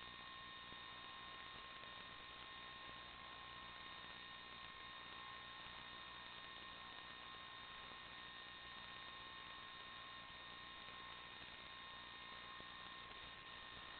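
Faint steady hiss and hum with a few thin high steady tones, unchanging throughout. This is the noise floor of an analog FPV video recording with no live sound on its audio channel.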